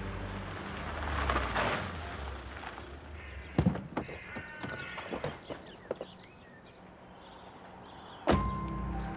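An Audi sedan rolls up on gravel with a short rush of tyre noise, then a sharp knock, a few lighter clicks and steps on gravel, and a car door shut with a loud thunk near the end.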